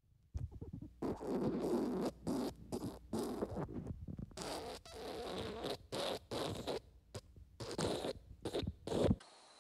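Comic fart sound effects: a run of ragged blasts, each under a second, with short gaps between them. They cut off abruptly near the end.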